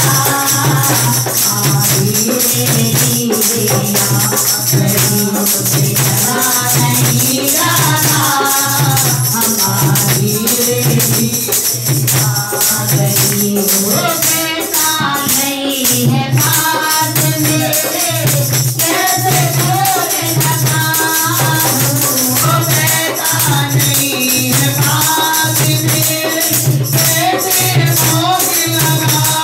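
A woman singing a Hindu devotional bhajan into a microphone, over a steady low beat and jingling percussion.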